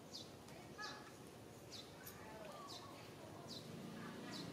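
Birds calling in the background: a short, high, falling chirp repeated about once a second, with a few softer, lower calls between.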